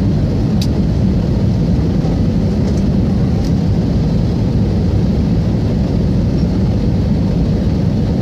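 Steady, loud rumble inside a jet airliner's cabin on its descent: engine and airflow noise, deep and unbroken, with a faint click about half a second in.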